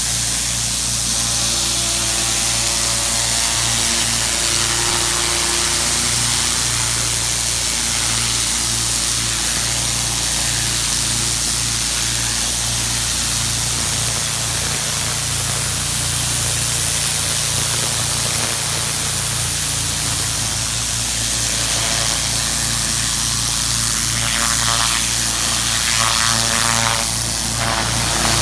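Pressure washer running steadily, the water jet from its turbo nozzle hissing against concrete under a constant low machine hum.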